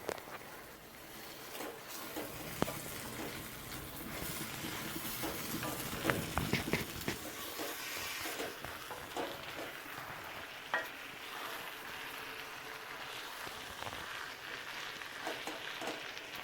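Masala-coated chicken frying in oil in a pan on a low flame, with a steady sizzle while it is stirred, and scattered clicks and scrapes of the spoon against the pan, a cluster of them about six seconds in.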